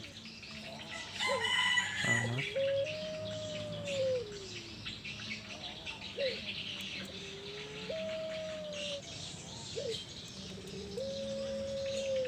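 Puter pelung doves cooing: three long drawn-out coos, each held on one pitch and then dropping away at the end, with short sliding notes between them. Small birds chirp faintly behind.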